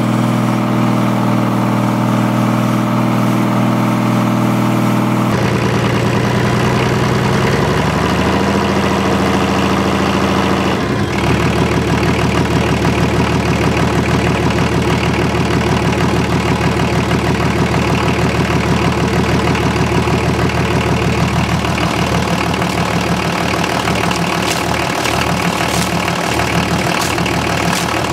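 Diesel engines running on test stands, exhaust led out through a water-spilling hose. One runs steadily, then after an abrupt change the pitch rises around eight to ten seconds in. From about eleven seconds on an inline diesel runs with a fast, even firing beat.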